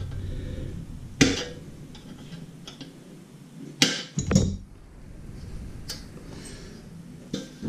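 Sharp, hard clicks as a knockout is worked out of an LED under-cabinet light fixture's cover: one about a second in, two close together near the middle, and one near the end.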